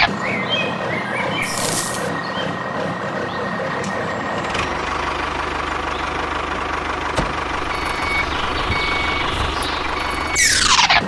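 Steady engine drone of a construction vehicle, with a short hiss about two seconds in and a few short reversing beeps near the end. A loud falling swoosh comes just before the end.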